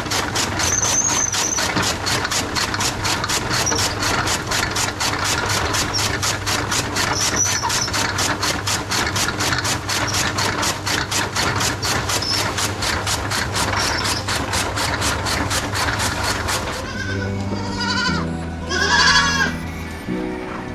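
A motor-driven machine running with a fast, even clatter of about four or five beats a second, with goats bleating. The machine stops about three-quarters of the way through, and the goats go on bleating.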